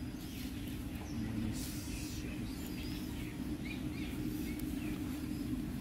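Outdoor ambience: a steady low hum with a few faint, short bird chirps scattered through the middle.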